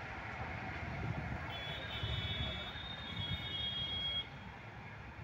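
Low rumble of motorbikes and traffic at a railway level crossing, with a high, steady whining tone for about two seconds in the middle. The rumble drops off suddenly near the end.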